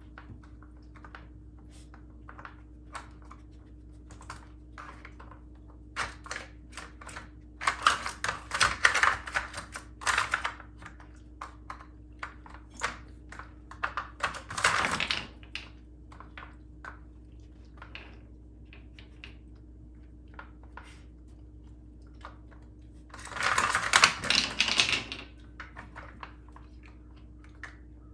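A plastic Dog Brick puzzle feeder clicking and clattering as a puppy noses and paws at its sliding lids and lift-out bone pieces to get at food. Scattered light clicks, with three longer bursts of rattling about eight, fifteen and twenty-four seconds in, the last the loudest.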